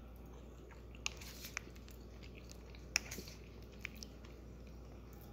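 A man chewing a mouthful of pasta shells in creamy cheese sauce: faint wet mouth sounds with a few short, sharp clicks.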